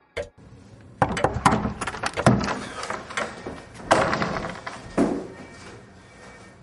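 A run of knocks, thumps and scrapes, loudest from about one to five seconds in, as a man walks up to a desk and sits down on an office chair.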